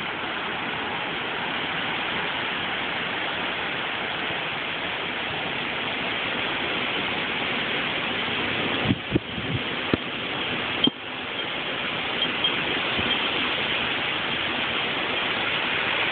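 Steady rushing noise of hurricane wind and heavy rain, with a few brief sharp knocks around the middle.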